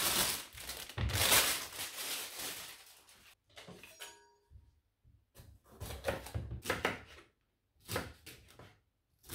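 A plastic produce bag crinkling as bell peppers are handled. Then a kitchen knife chops the peppers on a plastic cutting board in short, separate strokes.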